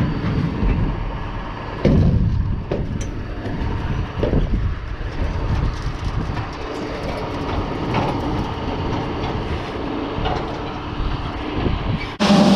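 Farm machinery rumbling steadily, with a few scattered metallic knocks. Near the end the sound changes abruptly to a louder, steady engine hum.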